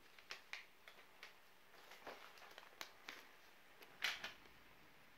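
Faint, scattered crackles and ticks from a steaming MRE flameless ration heater warming the chili pouch, with one louder brief crackle about four seconds in.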